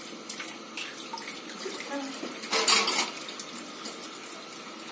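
Water sounds in a kitchen, either the pot of chicken broth boiling or a tap running, as a steady wash of noise. A brief louder rush or clatter comes about two and a half seconds in.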